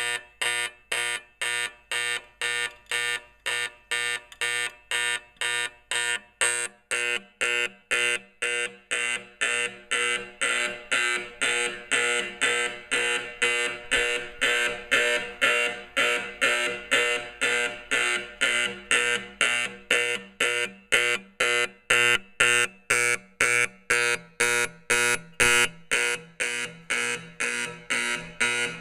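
Edwards 876-G5 fire alarm horn sounding in even pulses, about two a second, loud. Its tone turns brighter about twelve seconds in.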